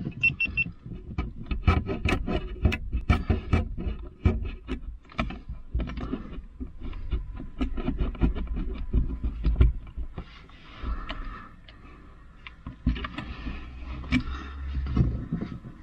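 Rear-view mirror being wiggled back and forth on its windshield mount, its 3D-printed plastic adapter clicking and knocking as it is worked onto the metal mounting plate. Rapid, irregular clicks and knocks with low thumps, thinning out after about ten seconds.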